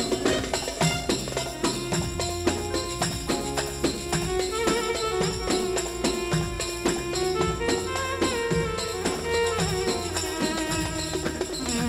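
Instrumental Egyptian sha'bi wedding music played live: a Korg arranger keyboard carries the melody over a drum beat, with a riq (jingled tambourine) rattling in rhythm.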